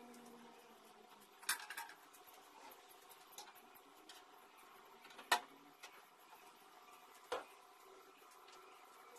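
Faint room tone with three light knocks of ornaments being handled and set down on wall shelves, the loudest about five seconds in.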